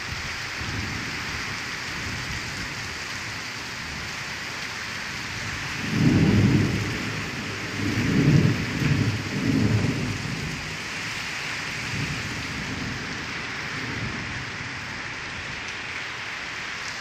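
Heavy rain pouring steadily, with thunder rumbling in several deep surges from about six to ten seconds in, the loudest part.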